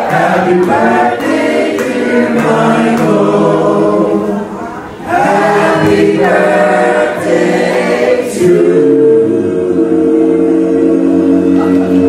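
A group of voices singing together without instruments, ending on a long held chord.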